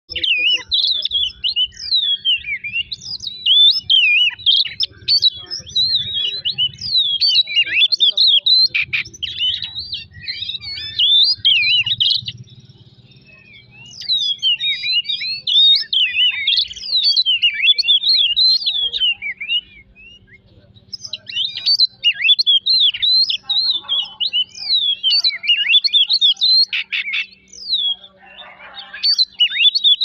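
Oriental magpie-robin (kacer) singing a fast, varied song of sliding whistles and chattering chirps, in long bouts broken by short pauses about 13 and 20 seconds in.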